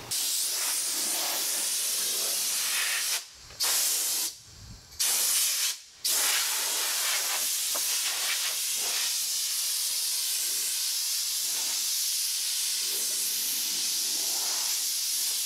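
Compressed-air blow gun with a long wand hissing steadily as it blows over the table leaves, with the air shut off briefly three times around three to six seconds in.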